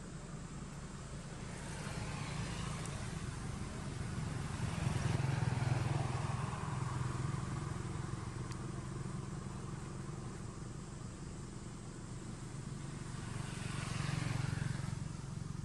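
Engines of passing motor vehicles: a low rumble that swells and fades as each one goes by, loudest about five seconds in and again near the end.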